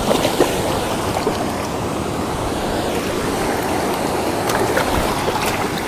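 Steady rushing noise of wind buffeting the microphone and moving water, with a few faint clicks.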